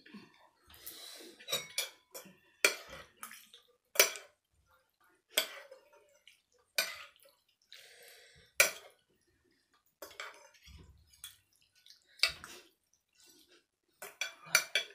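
Metal fork and spoon clinking against a bowl as noodles in broth are lifted and turned. There are separate sharp clinks every second or two, with a quick run of clinks near the end.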